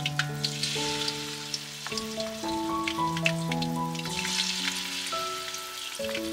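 Batter-coated salmon strips deep-frying in hot oil, a steady crackling sizzle with many small pops, which swells about four seconds in as another strip goes into the oil. Background music of slow held notes plays along.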